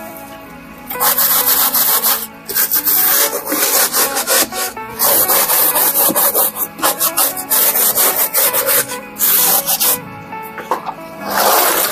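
A stiff hand scrub brush scrubbing the algae-coated inner wall of a styrofoam box at the waterline, in bursts of quick back-and-forth strokes with short pauses between them.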